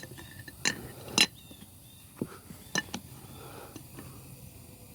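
Metal tools clinking and knocking against the steering parts a handful of times while a large nut is tightened by hand, without a torque wrench.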